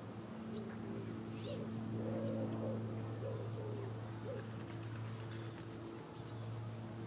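A pigeon cooing, a short run of low coos over the first four seconds or so, over a steady low hum.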